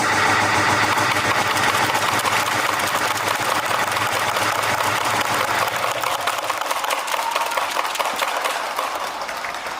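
Steady hubbub of a large indoor arena crowd, starting abruptly and easing off slightly near the end.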